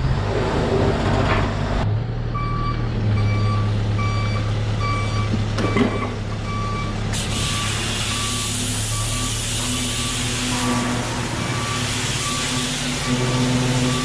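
Manitou telehandler's reversing alarm beeping at an even pace, about one and a half beeps a second, starting about two seconds in, over the steady low running of its diesel engine. A hiss joins about halfway through.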